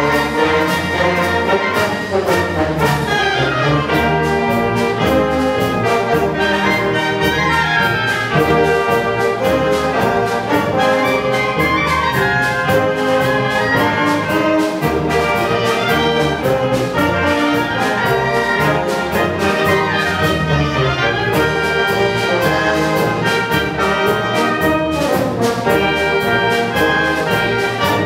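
Youth wind band playing in concert: trumpets, trombones, tubas, saxophones and clarinets together, with frequent percussion strikes marking the beat.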